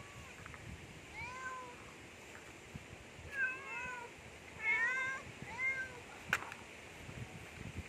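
Several hungry cats meowing: a handful of short, arched meows, some overlapping, the loudest a little past the middle. A single sharp click a little after the last meow.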